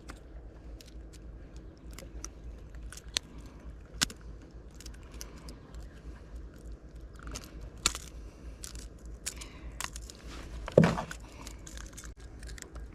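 Scattered small clicks and rattles from pliers and hook handling while a caught bass is being unhooked, with one louder thump about eleven seconds in.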